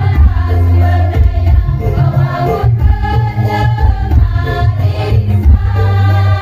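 A women's choir singing together through a PA, over music with a heavy, steady bass underneath.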